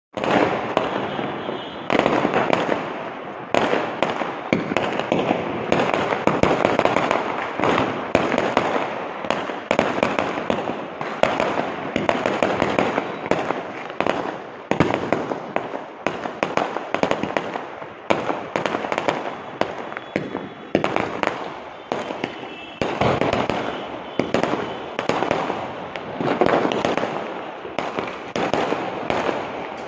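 Aerial fireworks going off in quick succession: a continuous barrage of bangs and crackling, with sharper, louder reports every second or two.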